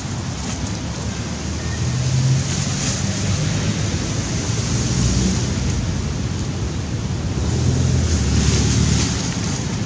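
Steady low rumble and hiss of outdoor background noise, swelling about two seconds in and again around eight seconds.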